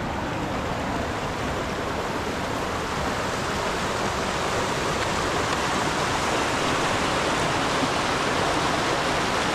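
Stream water rushing steadily over rocks, a constant roar of flowing water that grows slightly louder over the stretch.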